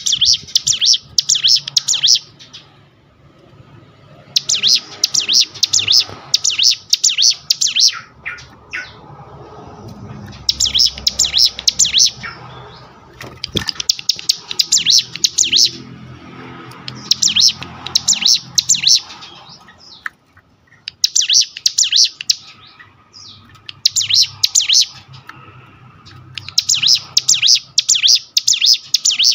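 Ciblek gunung, a prinia, singing in its full 'ngebrem' style: bursts of rapid, high, stuttering notes, each a second or two long, repeated about eight times with short pauses between.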